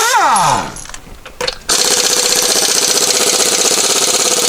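Impact wrench hammering on wheel lug bolts in two runs: the first stops about a second in, its motor winding down with a falling whine, and after a short pause a long, steady run of rapid hammering follows.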